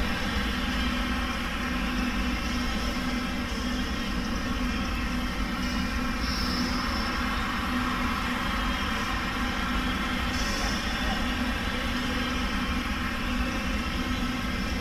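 Steady mechanical drone with a low hum running evenly throughout, with no distinct knocks or voices standing out.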